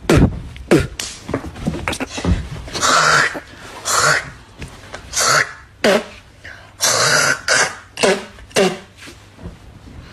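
A man coughing and clearing his throat, a long run of harsh coughs and hacks at uneven intervals.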